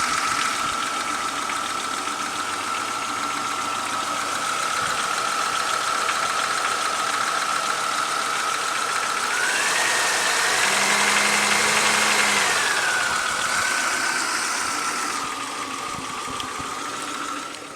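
2001 Chevy Lumina's 3.1-litre V6 idling after a cold start with a knocking, ticking noise that the owner wonders is piston slap or lifters. A steady whine rides over it; about ten seconds in the engine is revved briefly, the whine rising in pitch, then settles back to idle.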